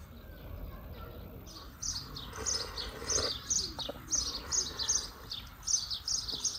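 A small bird chirping over and over: a quick series of short, high, falling chirps, about two a second, starting about a second and a half in.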